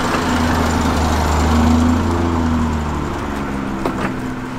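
Auto Union DKW station wagon's two-stroke engine running as the car pulls out, its pitch wavering up and down, with a couple of faint clicks near the end.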